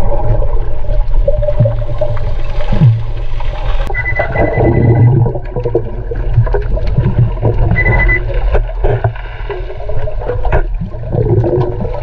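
Underwater water noise, a steady low rumble with scattered clicks and gurgles. Two short high steady beeps come about four seconds and about eight seconds in, from a diver's underwater metal detector signalling metal.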